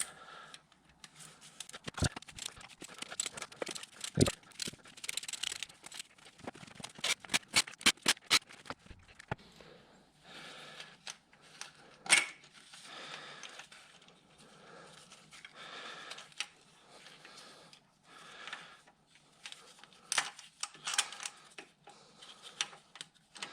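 Hand tools working on the rocker shaft bolts of a Suzuki Alto's 16-valve cylinder head: a ratchet with a 6 mm Allen bit clicking in short strokes and metal clinking, as the bolts are slackened a bit at a time against the valve spring tension. A quick run of clicks comes about seven seconds in, then repeated short ratcheting strokes.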